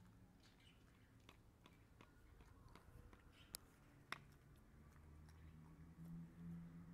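Faint gnawing of a small dog chewing a knotted rawhide bone: scattered soft clicks of teeth on the hide, with two sharper clicks about three and a half and four seconds in.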